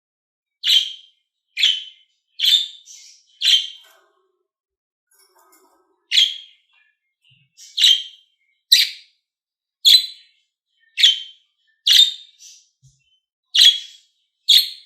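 A bird chirping: about a dozen short, sharp chirps, roughly one a second, with a pause of about two seconds a few seconds in.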